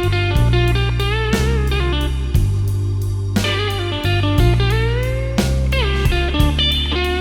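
Electric blues band playing an instrumental intro: a lead electric guitar bends and slides its notes over a walking bass line and a steady beat. About five seconds in, the guitar makes a long upward slide.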